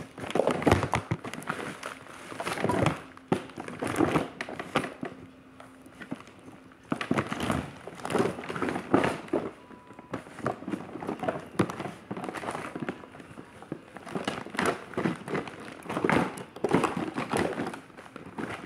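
Rustling and crinkling of items being rummaged through and handled close to the microphone, coming in irregular bursts.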